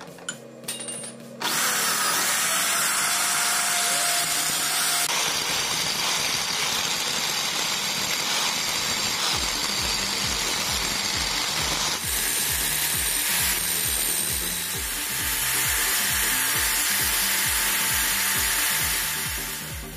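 Angle grinder grinding down the outer race of a used steel ball bearing spun in an electric drill chuck, a loud continuous harsh grinding starting about a second and a half in.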